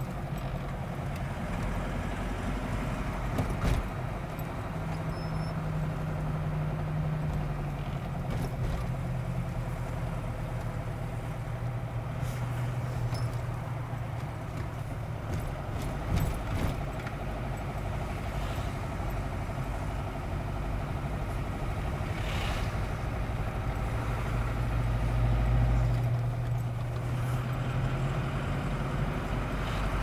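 Vehicle engine and tyre noise heard from inside the cabin while driving, a steady hum whose pitch shifts a few times, with a few brief clicks or rattles.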